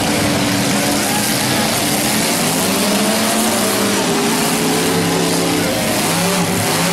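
Several demolition derby car engines revving hard at once, their pitches rising and falling over each other over a loud haze of noise.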